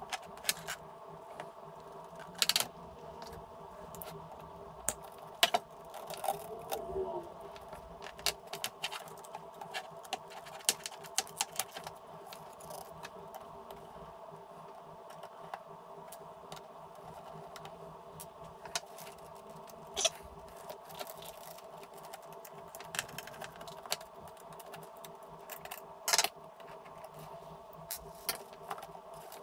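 Irregular clicks, taps and light rattles of plastic case parts, screws and a screwdriver as an Amstrad CPC464 home computer is taken apart by hand, with a few sharper knocks. A steady background hum runs underneath.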